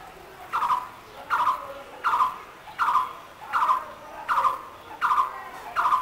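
Blue-throated barbet calling: eight short, rolling notes repeated evenly about every three-quarters of a second, starting about half a second in.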